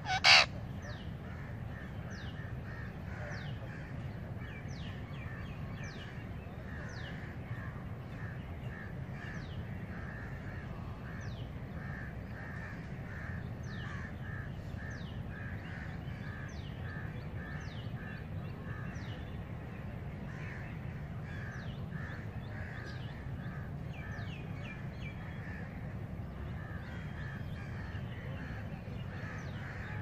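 An Indian ringneck parakeet gives one loud, sharp screech about a third of a second in. Behind it, wild birds call steadily: repeated short calls and many quick, high, falling chirps over a low steady rumble.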